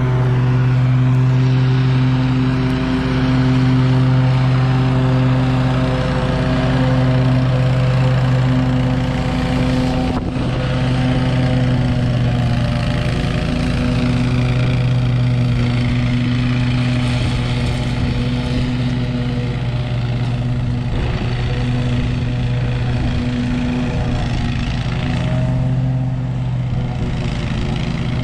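Zero-turn lawn mower engine running steadily while mowing, a deep, even hum that holds throughout.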